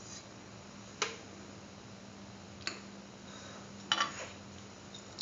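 A cooking utensil tapping and scraping against a stainless steel pan: four short clicks spread over a few seconds, the third a quick double knock. A steady low hum runs underneath.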